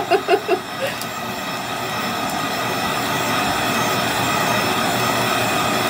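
Handheld heat gun blowing steadily over a wooden cutout to dry its fresh coat of paint, a continuous rushing air noise with a motor whine.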